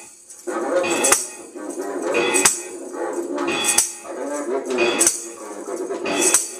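Circuit-bent electronics played as noise music: a looping, wavering pitched drone, with a bright, hissing, tambourine-like crash about every 1.3 seconds.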